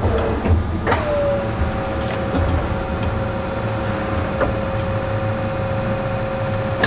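Steady mechanical hum over a low rumble. A sharp click comes about a second in, after which a steady, even-pitched whine sets in and holds.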